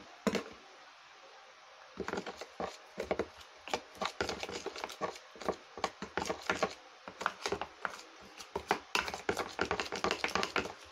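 A metal spoon stirring a thick paste of instant coffee, flour and vinegar in a small tub. It makes quick, irregular clicks and scrapes against the tub, starting about two seconds in after a brief quiet.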